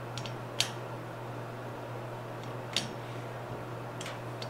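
A few short sharp clicks as screws are worked by hand into a metal cart frame, the loudest about half a second in and others near three and four seconds, over a steady low hum.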